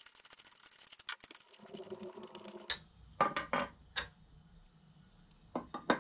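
Metal handlebar-clamp parts of a brushcutter being handled during assembly: handling rustle with small clicks, then a few sharp metallic clinks and knocks, three together after about three seconds and three more near the end.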